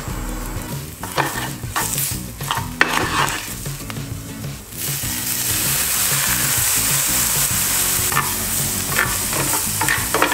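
Oyster mushrooms sizzling on a hot ribbed grill pan, with a few clicks and knocks in the first half. About five seconds in, the sizzle grows into a louder, steady hiss.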